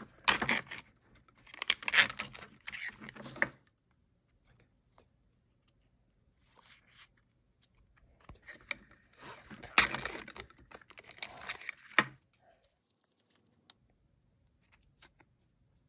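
Close-up crinkling and tearing of the packaging of a Toy Mini Brands capsule being unwrapped by hand, in two spells, the first few seconds and again from about halfway, followed by a few faint clicks.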